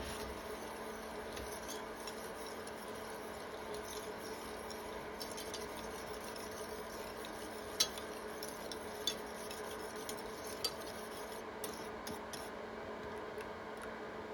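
A utensil stirring a thickening creamy sauce in a pan on the stove, with a few light clicks against the pan over a steady faint hum.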